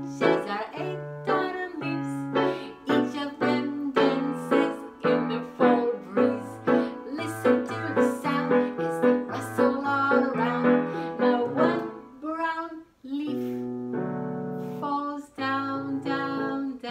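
Electronic keyboard playing a children's song in a piano voice, with a woman singing along. The playing breaks off briefly about thirteen seconds in, then goes on with longer held chords.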